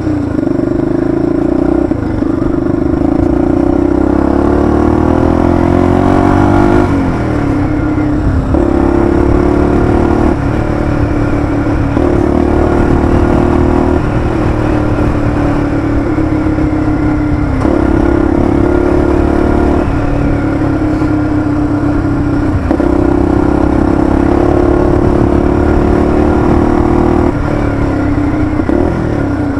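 Honda XLX 250R single-cylinder four-stroke motorcycle engine running under way. The engine note climbs over the first few seconds, then drops sharply and steps up and down several times with the throttle and gear changes.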